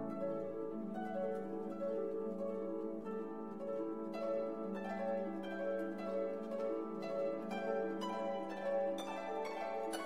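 Background music: held chords, joined about four seconds in by a run of plucked notes that grows busier toward the end.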